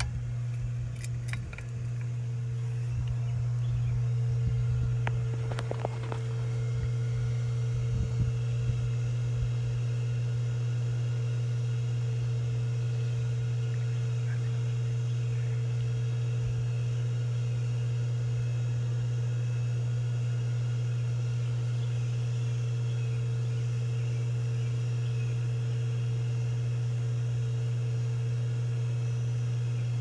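Air Cool Footprint ceiling fan switched on with a few pull-chain clicks, then its motor running with a steady low hum as the blades spin up and keep turning.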